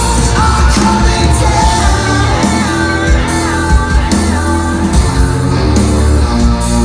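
Live rock band playing loud, with a singer's vocals over heavy drums, bass and distorted guitar, and cymbal crashes. Heard through a phone microphone, loud and boomy.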